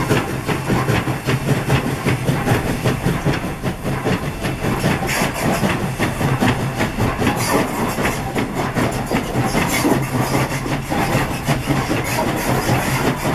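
Alco 0-6-0 steam locomotive CNJ 113 running with its train. A steady, rapid stream of sharp exhaust and rail strokes sits over a constant low hum.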